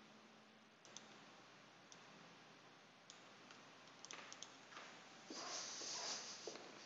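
Faint, scattered computer mouse clicks, about half a dozen, a few of them bunched together about four seconds in, over near silence. A short, soft rush of noise follows about five seconds in.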